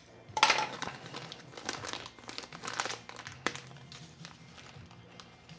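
Plastic parts bag crinkling as it is handled, in irregular bursts of crackles, loudest about half a second in and thinning out after about three and a half seconds.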